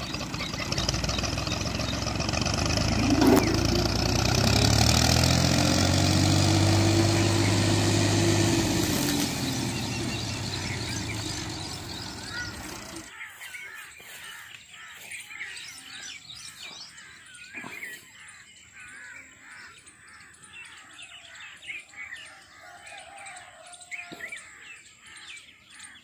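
Farm tractor's diesel engine running as it drives past, growing louder for several seconds and then fading. About halfway through it gives way to birds chirping over quieter outdoor background.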